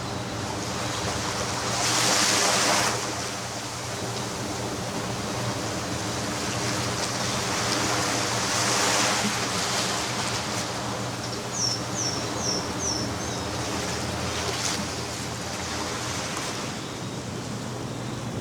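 Ocean surf washing on a sandy beach, a steady rush of waves with two louder breaking waves, about two seconds in and again about nine seconds in. Near the middle a bird gives four quick, high, falling chirps.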